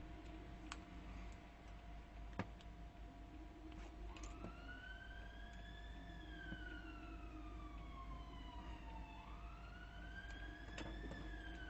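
An emergency-vehicle siren wailing, slowly rising and falling in pitch, coming in about four seconds in and going through two rises. Under it runs a steady faint hum, with a few sharp clicks, the loudest about two seconds in.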